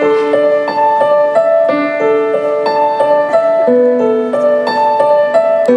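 Piano playing a song intro as a broken-chord figure, a new note about three times a second.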